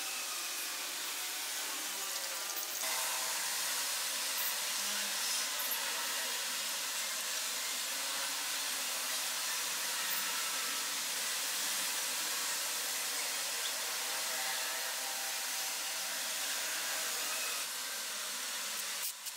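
A steady hissing noise, like a blower or spray, that holds unchanged and breaks off briefly near the end.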